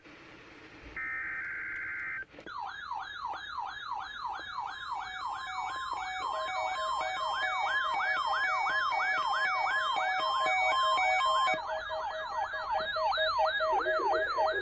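Weather radio receivers alerting on an Emergency Alert System test. First comes a one-second burst of the EAS data header tones. About two seconds in, a warbling siren alarm starts, falling in pitch two to three times a second, and about six seconds in a pulsed beeping joins it. A broadcast voice starts faintly under the alarms near the end.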